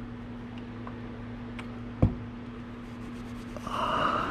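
Hand noise at a workbench: one sharp knock about halfway through, then about a second of cloth rustling near the end as a rag is worked against a small oil bottle, over a steady low hum.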